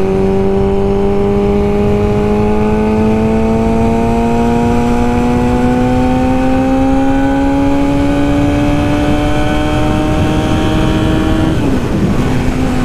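Yamaha R6 inline-four engine pulling hard under acceleration, its pitch climbing slowly and evenly as the revs rise toward the 8,000 RPM range where the power comes in. About a second before the end the pitch drops suddenly and then holds lower.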